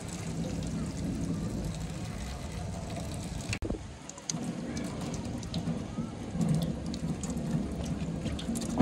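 Tap water running and splashing into a stainless-steel sink. First the water pours off rice being rinsed in a pot, then it runs over pandan leaves being rubbed clean by hand, with a brief break about three and a half seconds in.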